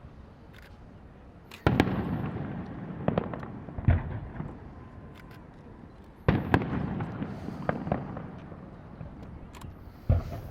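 Aerial firework shells bursting: four sharp bangs a couple of seconds apart, each followed by a rolling rumble that fades out, with smaller pops and crackles between them.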